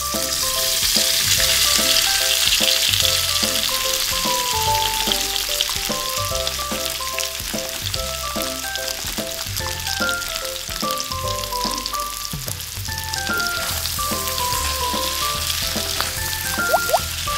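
Hot oil sizzling steadily as breaded chicken thighs deep-fry in a small wok, the sizzle strongest a second or so after the pieces go in, then settling. A light music melody plays underneath.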